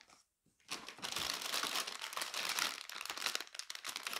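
Packaging crinkling and rustling as vacuum cleaner accessories are unpacked by hand, starting just under a second in after a brief hush.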